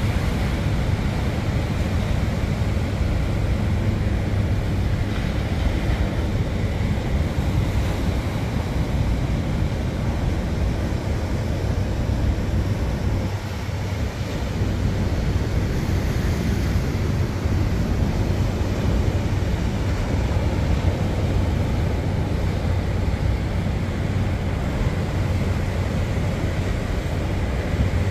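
Rough sea surf breaking and washing against a concrete tetrapod breakwater, mixed with wind buffeting the microphone as a steady low rumble.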